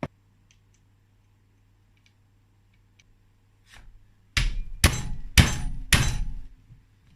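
Four sharp metallic knocks about half a second apart, each with a short ring, from metal parts of a stripped two-stroke motorcycle engine being struck during the teardown. A click sounds at the very start, and a few faint ticks follow before the knocks.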